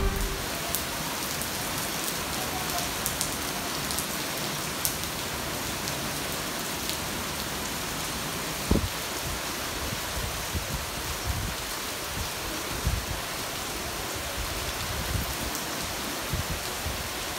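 Heavy monsoon rain falling steadily: a dense, even hiss with scattered close drops tapping, and one sharper knock about halfway through.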